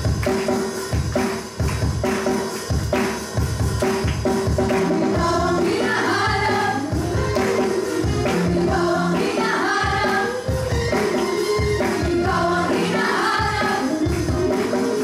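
Music with a steady beat of about two strokes a second; a voice starts singing over it about five seconds in.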